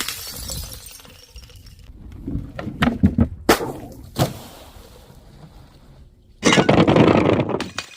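Glass bottles breaking: a crack at the start, several sharp cracks and clinks in the middle, then a loud burst of shattering glass lasting about a second near the end, followed by small shards tinkling.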